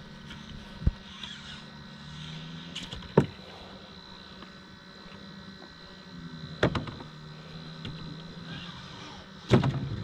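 Four sharp knocks inside a small fishing boat at uneven intervals, the loudest near the end, over a steady low hum.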